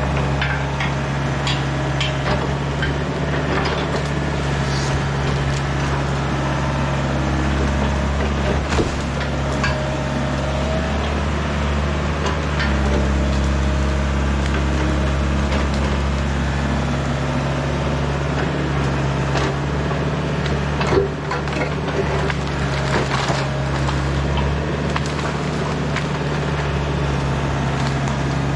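Excavator diesel engine running steadily under hydraulic load while its bucket grabs and pulls logs and branches from a firewood pile, with repeated cracking, snapping and knocking of wood. A louder knock comes about two-thirds of the way through.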